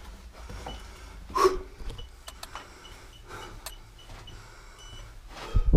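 Footsteps scuffing along an earthen tunnel floor, with camera handling noise and a low rumble. A sharp knock comes about a second and a half in, and a heavy thump near the end.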